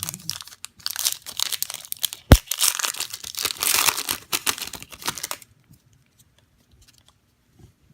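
Foil trading-card pack wrapper being crinkled and torn open, with one sharp snap a little over two seconds in; the crinkling stops about five seconds in.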